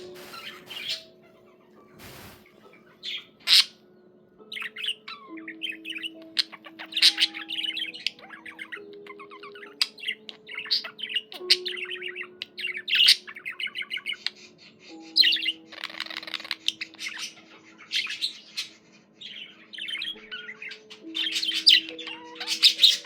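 Pet budgerigar warbling and chattering: a steady run of quick, irregular chirps with occasional louder squawky notes.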